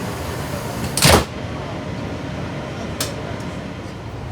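The pneumatic passenger doors of a Class 166 diesel multiple unit working: a short loud blast of air about a second in, then a single sharp click about two seconds later, over the steady rumble of the idling train.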